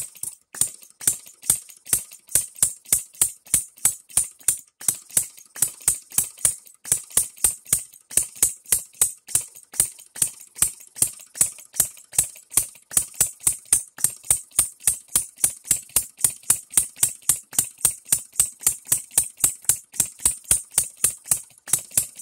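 Engine DIY three-stroke model gasoline engine running on a 12V buzz coil ignition: a sharp snap with a brief high buzz at each firing, about three a second and slightly uneven.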